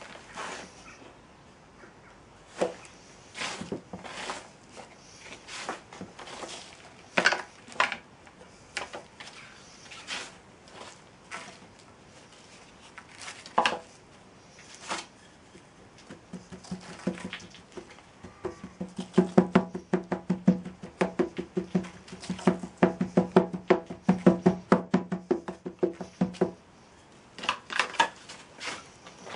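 Moulding sand being packed into a wooden moulding flask over a pattern: scattered knocks and scrapes as sand is scooped in and pressed down by hand, then, about two-thirds of the way through, a fast run of thuds lasting several seconds as the sand is rammed firm.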